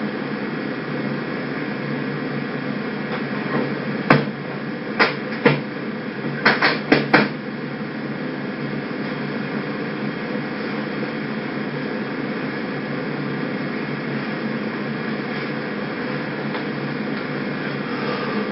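Steady background hiss and hum, with about seven sharp knocks or clicks bunched between about four and seven seconds in.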